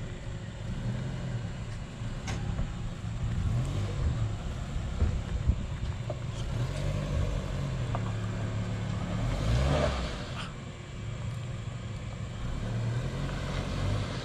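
Mitsubishi Pajero iO's engine revving up and down repeatedly as it works up a rutted dirt climb, with a louder surge about ten seconds in. The SUV is on highway tyres and is short of traction, needing more momentum.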